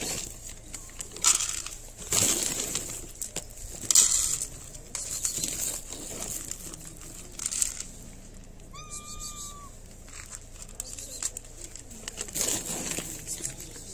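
A plastic bag of dry cat food crinkling and kibble rattling onto ceramic plates, in several separate bursts. A short high call about nine seconds in.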